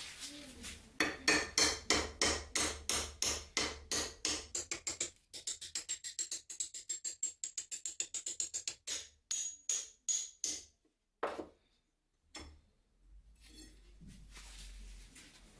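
Repeated strokes of a hand tool on the dagger's steel, about three a second at first, then a faster run with a high metallic ring. The strokes stop about two-thirds of the way through, with a lone stroke or two after a short gap.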